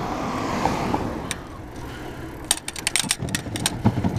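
Fat bike rattling and clattering over cracked, bumpy asphalt: a quick run of sharp knocks and clicks starting about two and a half seconds in. Before that comes a steady rush of wind and tyre noise.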